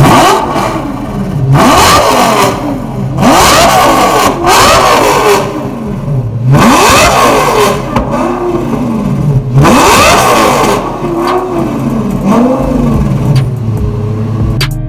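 Lamborghini Gallardo V10 engine with a custom exhaust, revved hard about five times in quick blips. Each rev rises sharply in pitch and falls back, with flames shooting from the tailpipes. Near the end it settles back to a lower, steadier run.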